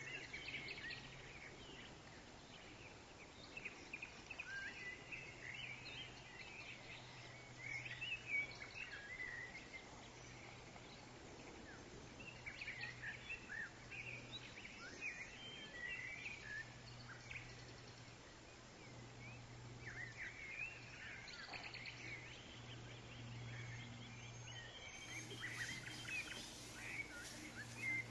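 Faint songbird chirping, many short calls overlapping, over a steady low hum. Near the end a run of small clicks and rustles comes in.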